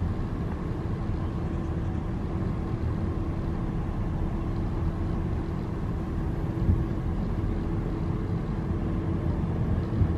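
A car running, heard from inside the cabin: a steady low rumble with a faint even hum.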